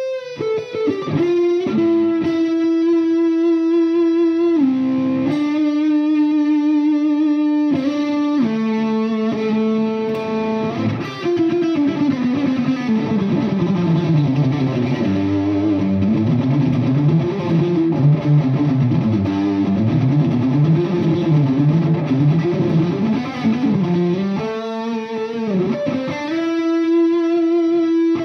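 Electric guitar played through a Bogner Super Shiva tube amp head into a Friedman speaker cabinet: long sustained notes for the first ten seconds or so, then fast runs of notes climbing and falling, then held notes again near the end.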